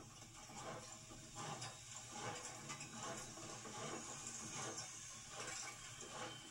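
Norfolk & Western 1218, a Class A 2-6-6-4 articulated steam locomotive, rolling slowly: its running gear clanks in a rhythm of about two knocks a second over a steady hiss of steam.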